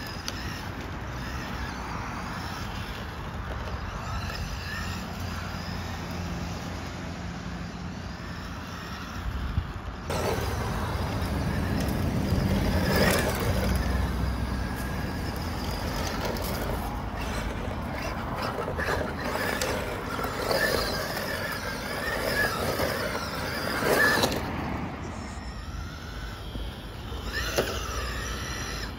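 Tamiya MB-01 1/10 electric radio-controlled Fiat Abarth touring car being driven: its electric motor whines and rises and falls with the throttle over tyre noise. The sound swells on several close passes and steps up suddenly about ten seconds in.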